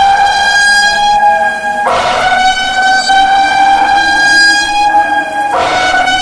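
Emergency Alert System alarm tone: a loud, sustained, horn-like tone with a harsh buzzy edge. Two brief noisy bursts break in about two seconds in and again near the end.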